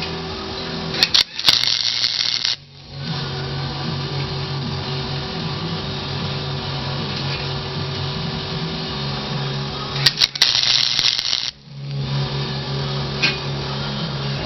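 Two spot welds from a 110-volt flux-core wire welder on thin sheet-metal floor pan: each is a sharp, crackling arc about a second and a half long, the first about a second in and the second about ten seconds in. Music from a radio plays steadily underneath.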